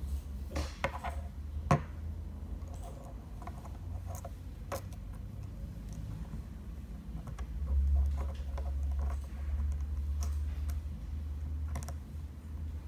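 Small clicks and taps of a hair clipper blade assembly being handled: metal blade, plastic housing and a wire tension spring knocking together as they are fitted, the sharpest click about two seconds in, over a low handling rumble.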